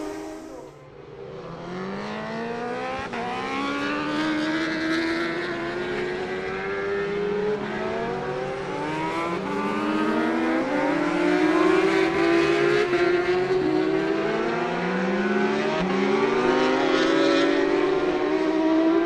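Racing motorcycle engines on a circuit, accelerating hard and shifting up through the gears, with the pitch climbing and dropping back at each shift. Several bikes overlap. The sound dips briefly about a second in, then builds louder.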